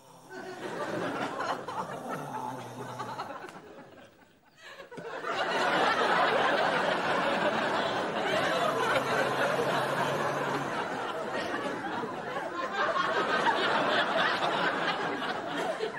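Studio audience laughing: a first wave of laughter that fades out after about three seconds, then a louder, longer wave from about five seconds in that carries on to the end.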